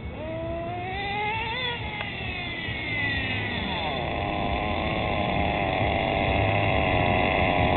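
Sirio tx18 nitro engine of an HPI MT2 18SS stadium truck, still being run in: it climbs in pitch for the first couple of seconds, drops away as the truck slows, then settles into a steady idle.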